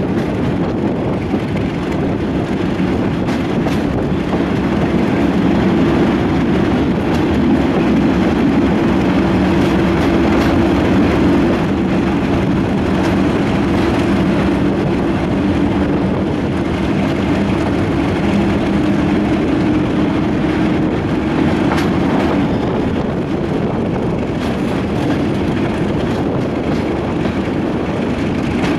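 Class 37 diesel locomotive's English Electric V12 engine running steadily under power, heard from an open carriage window close behind it, with rushing air and the wheels clicking over the rails.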